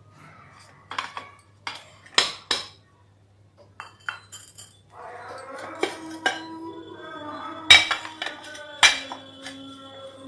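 White dinner plates clinking against one another as they are wiped with a cloth and stacked: about eight sharp clinks with a brief ring, four in the first three seconds and four more in the second half.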